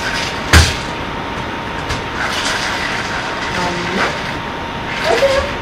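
A single loud thump about half a second in, over a steady background hiss, with short voice sounds near the end.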